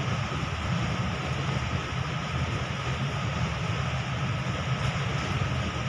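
Steady machine noise: a low hum under a constant hiss, with a faint high steady tone, holding level throughout.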